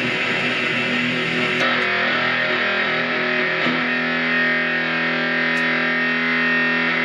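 Electric guitar played through a Noise Therapy FX Stomp Box Fuzz pedal: thick fuzz-distorted chords, with a change of chord twice and the last one, struck about three and a half seconds in, left to ring and sustain.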